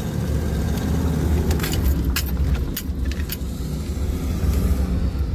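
Steady engine rumble and tyre noise of a moving vehicle on wet pavement, heard from inside the cab, with a few short light clicks or rattles about one and a half to three and a half seconds in.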